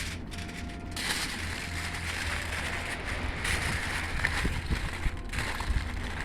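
Aluminium foil crinkling and rustling as it is folded and wrapped around a stuffed bird, with brief pauses.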